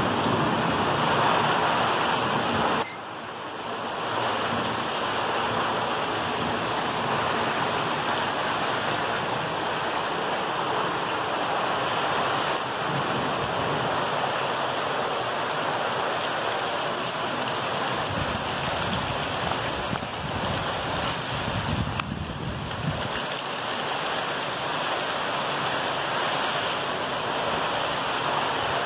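Heavy rain pouring steadily on foliage and waterlogged ground, a dense continuous hiss, with a sudden brief dip in loudness about three seconds in.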